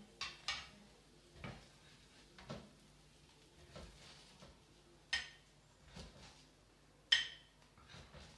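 Metal spatula clinking and scraping against a flat frying pan and a plate as grilled paneer pieces are lifted off the pan: about seven sharp clinks, roughly a second apart, the loudest two near the end.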